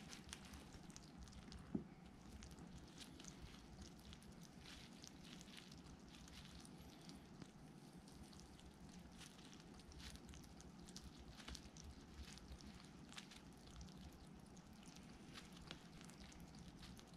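A pet hedgehog eating: faint, irregular crunching clicks, with one louder knock about two seconds in.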